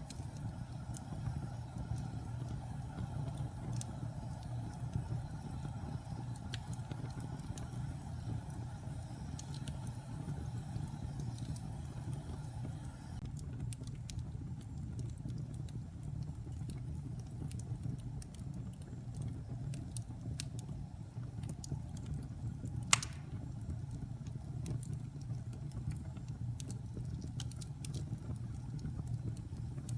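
Wood fire burning in a fireplace: a steady low rumble with light, scattered crackles and one loud pop about 23 seconds in.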